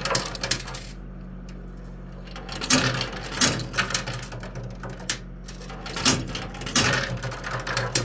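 10-peso coins dropping and clinking against metal and each other inside a coin pusher machine, in short clusters of clinks several times, over the machine's steady low hum.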